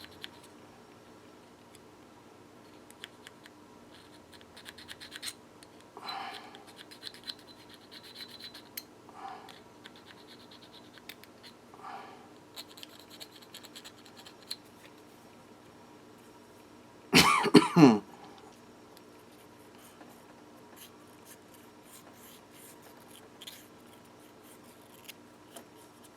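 Light, intermittent scraping and handling of small metal carburetor parts, with one loud cough about two-thirds of the way through.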